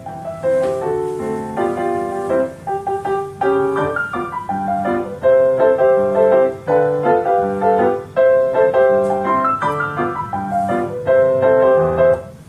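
Solo piano music played back through a pair of B&W CM9 loudspeakers, a run of clear, full-level notes that breaks off at the very end.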